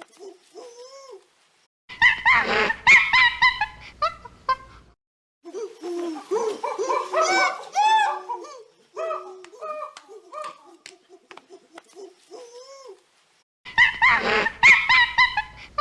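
High-pitched animal calls: runs of short, arching cries, several at a time, in segments that start and stop abruptly.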